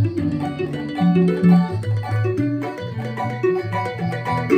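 Keroncong band playing the instrumental close of the song: rhythmic plucked strings over a plucked bass line, with no singing. A final chord is struck near the end.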